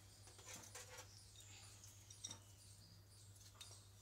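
Near silence: room tone with a low hum, a few faint clicks and a couple of brief, high squeaks.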